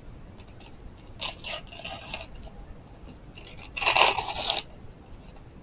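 Sticker packet being torn open by hand: a crinkly rip about a second in, then a longer, louder tear about four seconds in.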